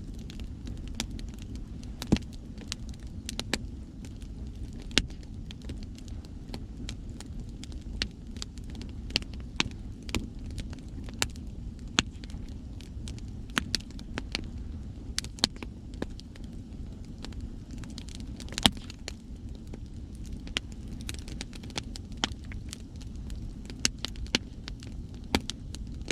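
Wood bonfire crackling, with frequent sharp, irregular pops, over a steady low rumble of sea waves.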